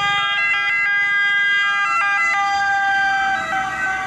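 Electronic ambulance siren sound, tones jumping up and down in quick steps, then holding longer notes near the end.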